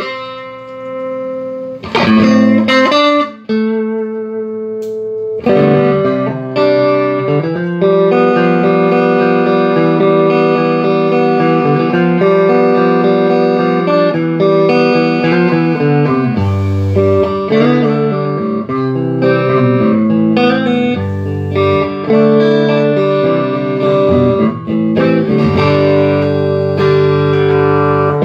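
Electric guitar played through a Vox AC30 CC2 valve amplifier: a few single notes left ringing, then steady chord and note playing from about five seconds in. The amp is working again after new filter caps, a new GZ34 rectifier and new top boost channel caps.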